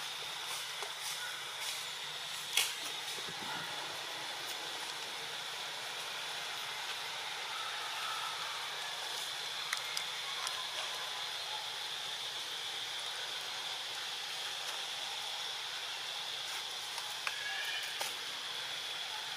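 Steady high-pitched outdoor hiss with a narrow, even drone running through it. A few faint clicks and small chirps come and go, and there is one sharper click about two and a half seconds in.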